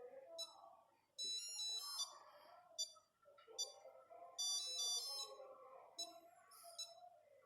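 Nokia 8210 monophonic ringtone playing through the phone's small speaker: a short phrase of quick, high beeping notes repeated about every three seconds, with single beeps in between.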